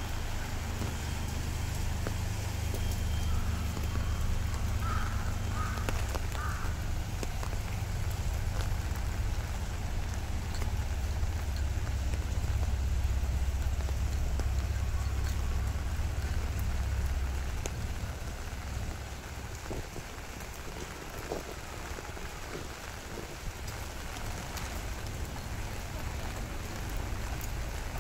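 Steady rain falling, heard as an even hiss, with a low rumble beneath it that eases about eighteen seconds in.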